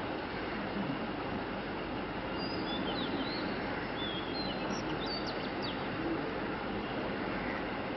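Small birds chirping, a cluster of short high calls in the middle few seconds, over steady outdoor background noise.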